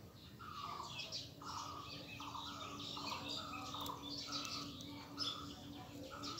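Birds calling: a short call repeated a little more than once a second, with higher chirps between.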